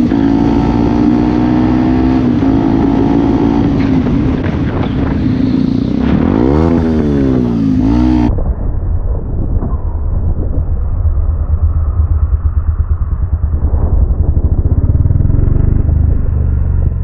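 Motorcycle engine running on the move, its revs rising and falling in quick swings a few times. About eight seconds in the sound cuts to a duller, muffled engine rumble with a fast, even pulsing.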